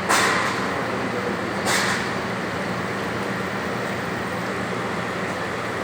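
Hydraulic segment-head surface grinder running with a steady motor hum, two short hisses sounding near the start, about a second and a half apart.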